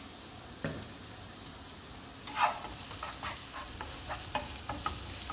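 Onions and curry leaves frying in oil in a non-stick pan, a steady sizzle. From about two seconds in, a utensil knocks and scrapes against the pan in a run of short clicks.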